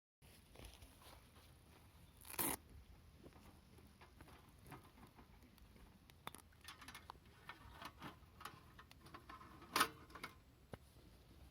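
Wood fire crackling, with scattered small ticks and two louder snaps, one about two seconds in and one near the end.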